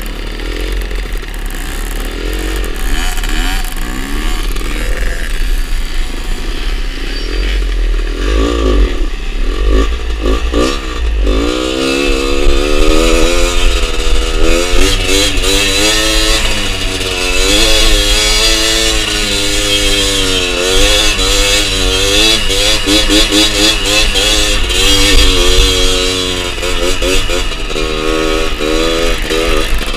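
Small two-stroke trail motorcycle engines revving, the pitch sweeping up and dropping back again and again as they are ridden up a dirt climb through the gears, with a steady rushing noise over them.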